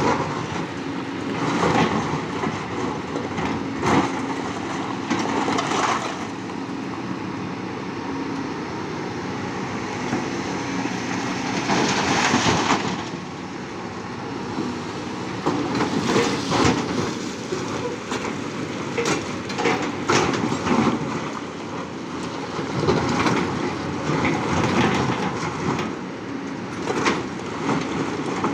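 Large mining excavator at work: its diesel engine running steadily under repeated metallic clanks and knocks.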